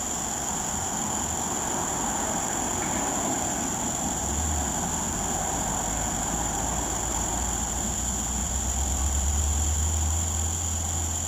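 Steady high-pitched insect chorus of summer. A low rumble swells beneath it from about four seconds in and is loudest near the end.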